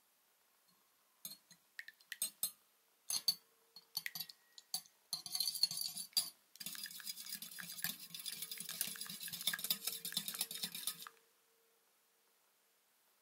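Wire whisk beating a raw egg in a white ceramic bowl: a few separate taps and stirs at first, then fast continuous clinking of the wires against the bowl that stops abruptly about two seconds before the end.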